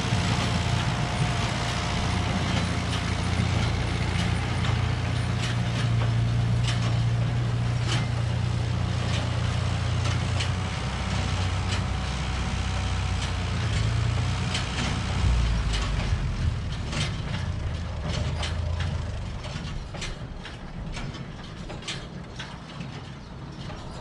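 Tractor engine running as it pulls a small square baler, with the baler's mechanism clicking and clanking irregularly. The engine hum fades over the last few seconds as the rig stops.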